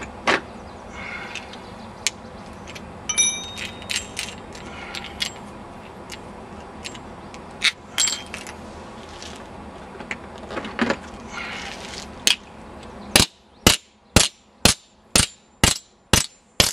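Small metal parts clicking and clinking as the nut and bent steel washer are taken off a cannon's piston and set down on concrete. Near the end, a steady run of hammer blows, about two a second, as the bent steel washer is pounded flat.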